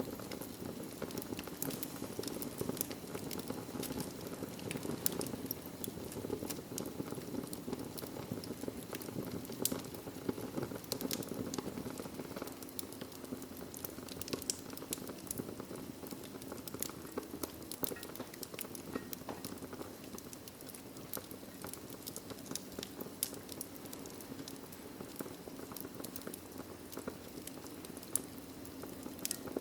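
Wood fire burning in a fireplace: a steady low rumble of the flames with scattered, irregular crackles and pops, more frequent in the first half.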